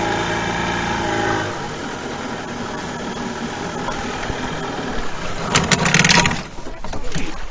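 Boat's outboard motor running steadily, its tone dropping away about a second and a half in, leaving the rush of water and wind. A few knocks and a short rattle near the end.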